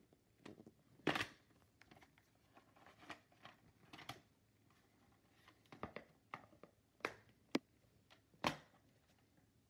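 Irregular handling clicks, taps and knocks of a plastic VHS tape case being handled, with the loudest knock about a second in and a few sharp clicks near the end.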